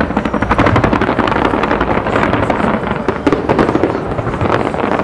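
Fireworks going off in a dense barrage: a continuous, rapid crackle of many small reports, loud and unbroken.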